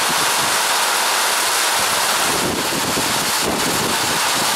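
Steady hiss of wind and rain, with wind buffeting the microphone in an uneven low rumble.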